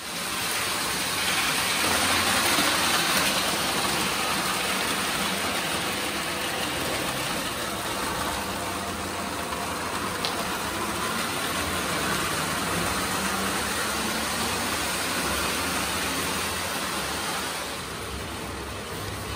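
Lionel O gauge toy train pulled by two NW2 switcher models running on three-rail tinplate track: a steady rumble of metal wheels and electric motor hum, easing a little near the end.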